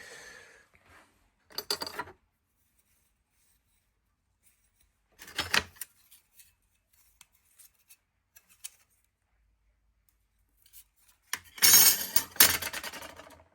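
Small hard tools and parts clinking and rattling against each other as they are handled, in three short bouts, the longest and loudest near the end.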